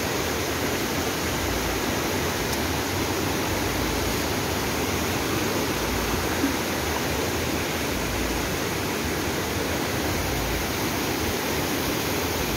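Swollen river in flood after heavy rain, its fast muddy current rushing over rocks in a steady, even rush of water.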